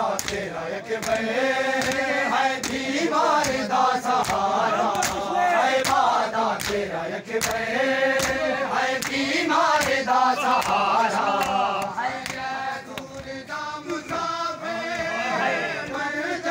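Group of men chanting a noha together in a steady rhythm, over a regular beat of open-hand slaps on bare chests (matam), about one and a half slaps a second.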